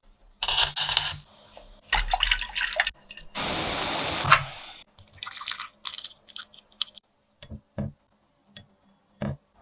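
Short noisy bursts of stirring and sloshing liquid, then water bubbling at the boil in a saucepan for about a second and a half. After that, scattered light clicks and taps, with a short knock near the end.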